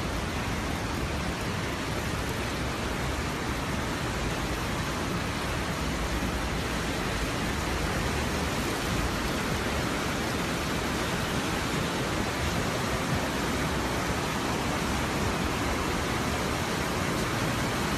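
Ottawa River floodwater rushing at its crest: a steady roar of churning water.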